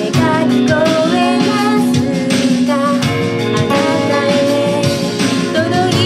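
A woman singing a song, accompanying herself on a Gibson J-45 acoustic guitar.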